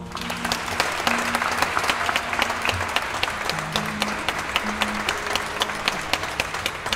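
Audience applauding, many hands clapping steadily, with music playing underneath.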